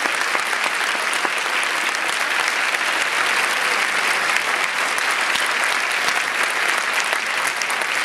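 Audience applauding, a dense, steady clapping that does not let up.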